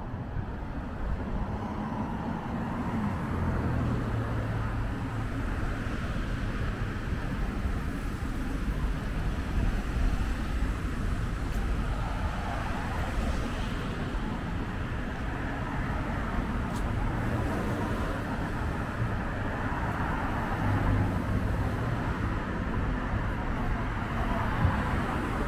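Street traffic: cars passing on a city street, a steady road noise with engines swelling and fading as they go by.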